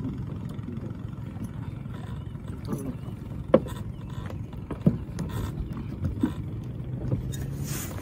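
Small wooden boat's motor running with a steady low drone, with a few sharp knocks in the middle.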